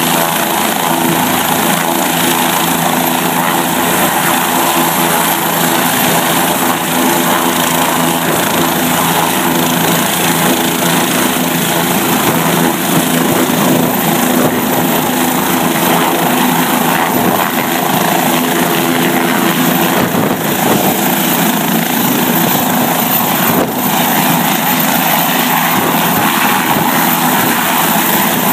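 Bell 407 helicopter's single turboshaft engine and rotors running steadily at high power on the helipad, with a steady turbine whine over the rotor noise; the helicopter lifts off toward the end.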